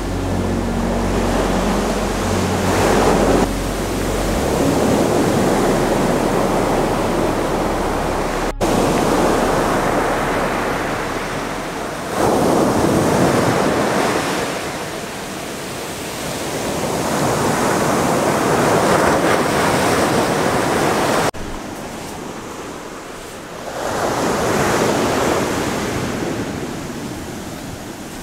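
Rough sea surf breaking and washing up the beach, surging and ebbing every few seconds, with wind buffeting the microphone.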